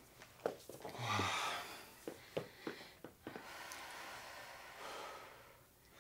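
Heavy breathing and forceful exhales of people straining through flutter kicks, with a short grunt about a second in and a few soft clicks in the first half.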